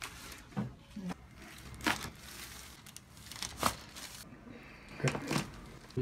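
Joints cracking during a chiropractic adjustment: a run of short, sharp pops and crackles, about six in all, spread across a few seconds, with faint rustling between them.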